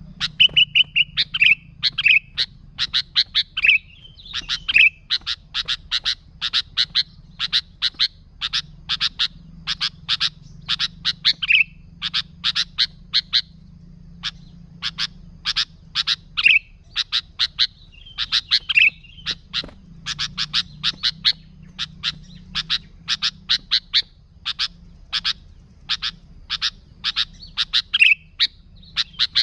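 Sooty-headed bulbul calling energetically: a fast run of short, sharp chattering notes, several a second, broken now and then by brief warbled phrases. A faint low hum runs underneath.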